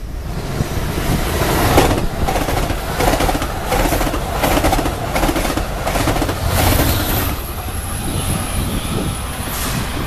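Amtrak Pacific Surfliner passenger train passing close at speed: a steady rush with a rhythm of wheel clicks over the rail joints, a few a second. The diesel locomotive pushing at the rear goes by about two-thirds of the way through, the loudest moment, and the sound then eases as the train pulls away.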